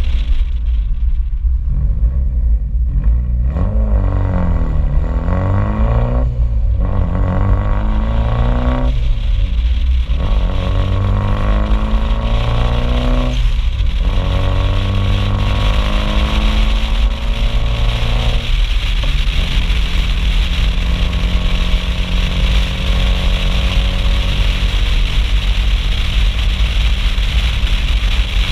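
Mitsubishi Lancer Evolution IV's turbocharged 2.0-litre four-cylinder and loud exhaust accelerating through the gears, the pitch climbing and dropping back at several gear changes in the first two-thirds, then a long steady climb. Constant wind rumble on the outside-mounted microphone.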